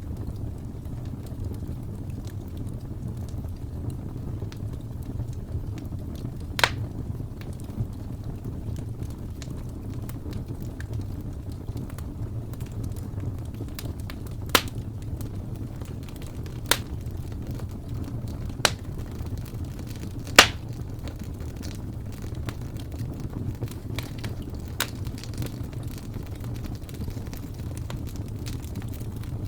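Fire burning in a steel fireplace, with a steady low rumble and a scattering of sharp crackles and pops, about half a dozen of them loud.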